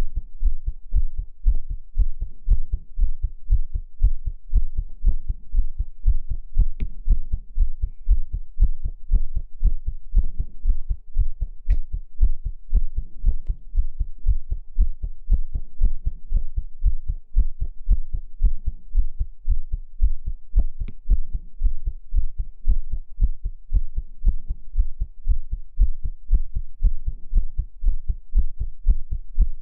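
Heartbeat sounds: deep, low thumps in a steady, even rhythm, like a heart heard from inside the body.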